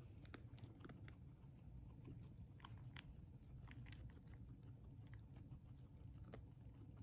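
Guinea pig chewing an Oxbow Vitamin C cookie: faint, irregular crunching clicks.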